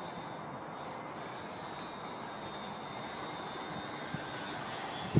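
Electric motor of a HobbyZone Super Cub LP radio-controlled plane in flight, a thin high whine that grows gradually louder as the plane nears, over a steady hiss of wind.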